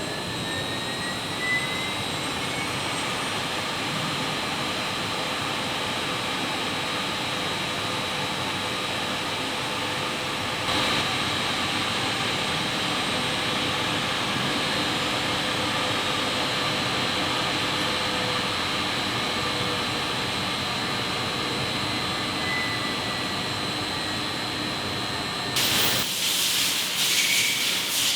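CNC grinding machine running: a steady dense hiss with a steady high whine, getting a little louder about eleven seconds in, and a louder, sharper hissing burst near the end.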